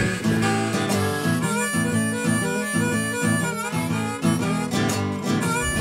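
Background music: a blues tune with harmonica over guitar, with a steady beat.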